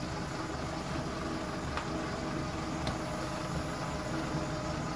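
Steady whirring hum of running electrical machinery: the generator unit's drive motor together with the box fan and hair dryers it is powering, with a couple of faint clicks.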